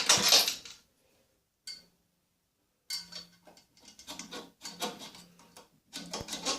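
Irregular light metallic clicking and clinking of hand tools and metal hardware being handled, starting about three seconds in after a silent gap.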